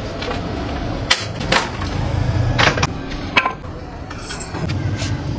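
Scrap wood planks knocking and clattering against each other and a concrete floor as they are broken up and stacked. There are several sharp knocks over a low background hum.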